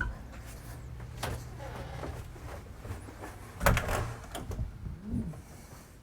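A few sharp knocks and clatters over a low steady hum, the loudest one a little past halfway.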